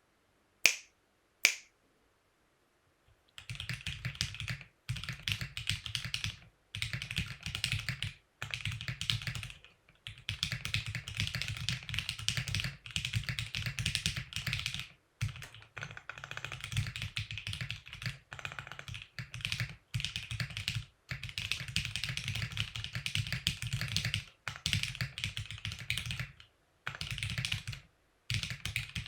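Two sharp clicks, then, after a short pause, fast continuous typing on a mechanical keyboard with OTC keycaps. The keystrokes come in long runs with brief gaps and have a deep low bottom-out along with the click of the keys.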